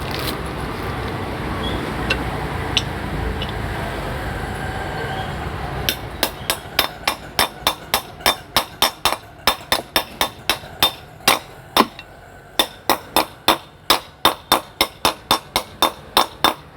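Rapid light hammer taps on the metal of a ceiling fan, working its bearing out, about three sharp ringing knocks a second from about six seconds in, with a brief pause midway. Before the tapping starts there is a steady rumble of background noise.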